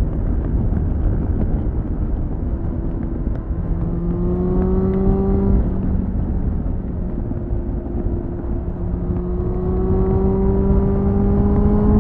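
2001 Suzuki GSF 600 Bandit's inline-four engine through a BOS slip-on exhaust, heard onboard over heavy wind rush. The engine note is faint for the first few seconds, then rises steadily in pitch under acceleration, breaks off about halfway, and climbs again through the second half.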